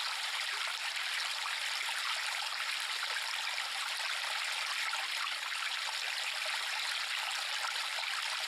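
River flowing steadily: an even rush of water with no deep rumble.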